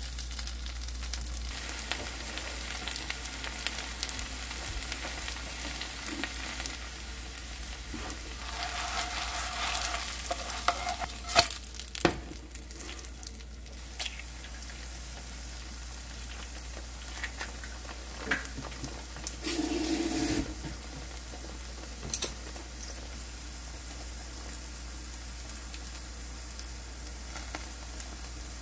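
Bean sprout pancake (kongnamul-jeon) frying in oil in a non-stick pan, a steady sizzle throughout. A metal spatula scrapes and taps against the pan, and a few sharp clicks come as an egg is cracked into the middle of the pancake.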